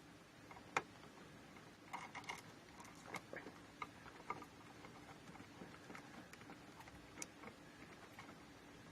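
Faint scattered clicks and light handling noise as bare copper ground wires are twisted together under a plastic wire nut, with one sharper click about a second in.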